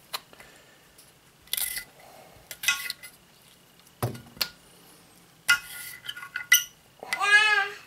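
Knife cutting potatoes on a hard cutting board: scattered sharp taps and clinks, with a duller thump about four seconds in. Near the end, a brief voice in the background.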